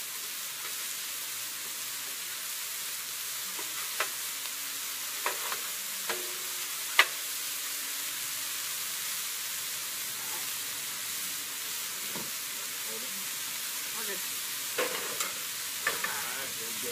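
Burger patties sizzling on a hot Blackstone 36-inch steel griddle, a steady hiss. Several sharp clicks of a metal spatula striking the griddle top as the patties are flipped come about four to seven seconds in, the loudest near seven seconds, and a few more come near the end.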